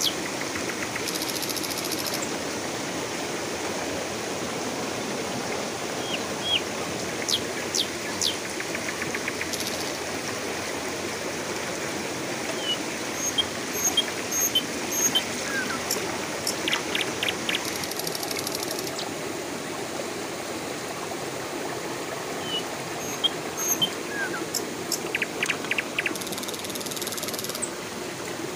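Shallow rocky river rushing steadily over stones, with short high chirps and clicks scattered through it and a few brief splashes.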